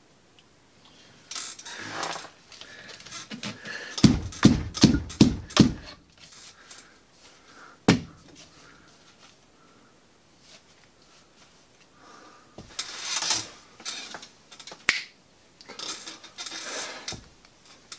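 Lacrosse stick pocket being pounded and handled: a quick run of about six sharp knocks around four seconds in, and a single knock near eight seconds. Between them come the rustle and scrape of the mesh and plastic head being handled.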